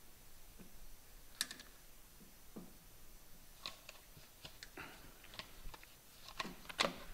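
Scattered light clicks and taps of rubber and plastic parts being handled, as a rubber bellows and bump stop are worked onto a suspension strut's shaft; they come more often in the second half, with a small cluster near the end.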